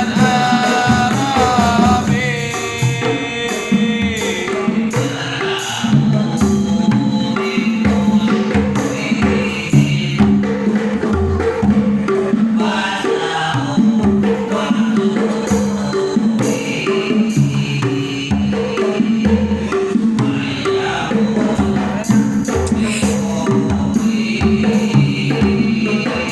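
Devotional sholawat music: a sung melody over a steady, repeating hand-percussion beat.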